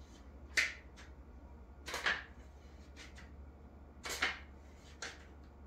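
Katana blade being slid in and out of its wooden scabbard: a series of short scrapes and small clicks, the longer scrapes about two and four seconds in, as the blade binds against the side of the saya.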